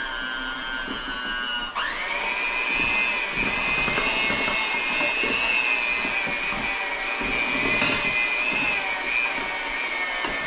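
Black+Decker electric hand mixer running, its beaters churning thick chocolate cake-mix batter in a glass bowl. About two seconds in, its steady whine jumps higher and louder, then holds with slight wavers as the beaters work the batter.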